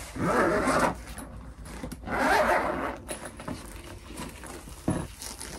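Zipper on a padded carry bag for a steel tongue drum being pulled, in two strokes of about a second each. A short thump near the end.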